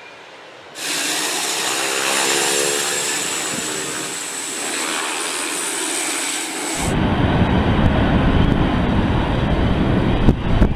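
Pilatus PC-12 single-engine turboprop passing close on the runway: a loud, steady high turbine whine over propeller and engine noise, starting suddenly about a second in. About seven seconds in the sound changes to a heavy low rumble as the clip cuts to another PC-12 landing.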